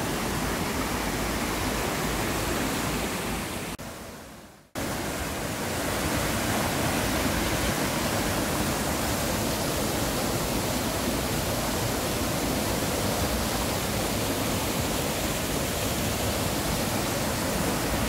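Mountain stream rushing through rapids between boulders, a steady whitewater rush. About four seconds in the sound fades away for a moment, then cuts back in at once.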